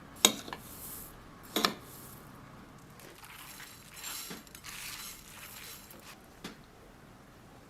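Kitchenware clinking: two sharp knocks about a second and a half apart near the start, then softer hissing noise and a light tap near the end.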